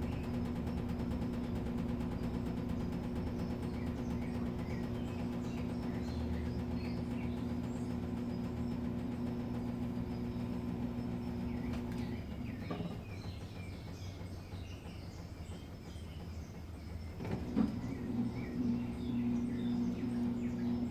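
Midea Wave-Agitator top-loading washing machine running with a steady motor hum. The hum stops about twelve seconds in and starts again about five seconds later. Faint bird chirps sound in the background.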